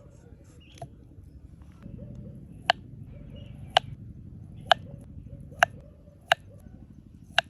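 Six sharp knocks or taps, roughly one a second, starting a little under three seconds in, over a low steady background noise.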